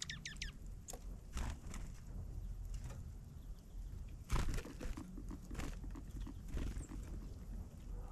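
Small wild birds feeding, making irregular light taps and knocks as they peck and hop, with a quick run of high, falling chirps at the very start. A steady low rumble runs underneath.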